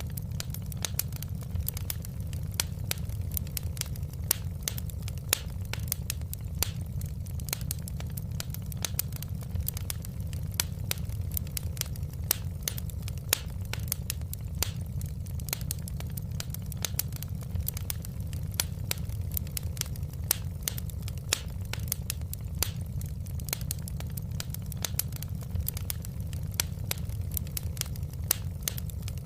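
Wood fire crackling in a fireplace: many sharp pops and snaps, several a second, over a steady low rumble.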